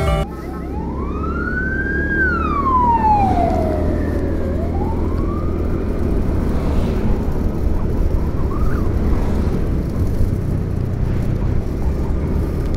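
Steady wind and road rumble of a motorcycle ride, with a siren wailing over it. The siren's pitch rises, falls and rises again over the first five seconds or so, then fades.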